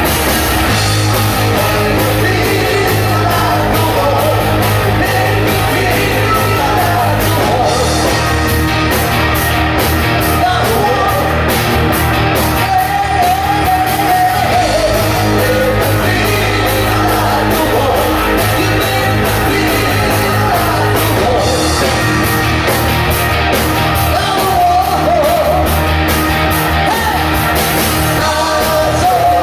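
Live rock band improvising with a sung vocal over guitar, bass and drums: loud and steady, with the rough, crowded sound of a poor live recording.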